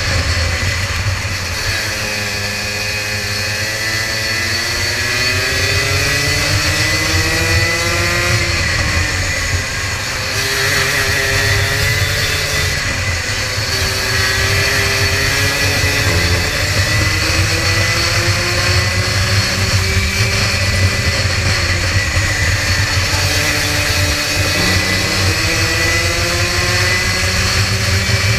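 Rotax Max 125cc single-cylinder two-stroke kart engine at racing speed, heard from on board, its revs climbing and falling several times as the kart accelerates and slows through a lap.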